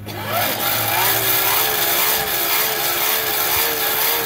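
Coal forge's air blower running, a steady rush of air through the fire with a slightly wavering hum, starting suddenly at the outset.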